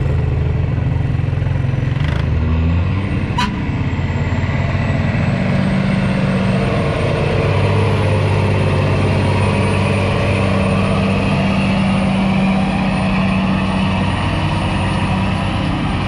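Fire truck's diesel engine running hard under heavy load as it drags a pulling sled down the track, a steady heavy drone with a small shift in pitch a couple of seconds in.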